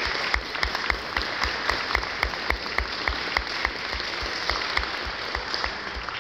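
Audience applauding, with one pair of hands clapping close by in a steady rhythm of about four claps a second.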